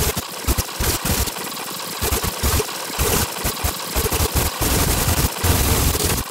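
Choppy, garbled bursts of sped-up audio playback from a REAPER project: fragments of synthesizer recordings, broken into irregular stuttering chunks.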